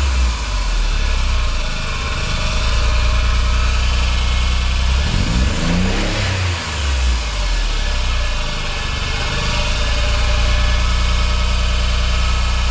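Nissan 300ZX's VG30DETT twin-turbo V6 idling, with one brief rev about five seconds in. It is making an abnormal noise the owner calls horrible, whose cause is still unknown: compression, timing and the VTC solenoids all check out.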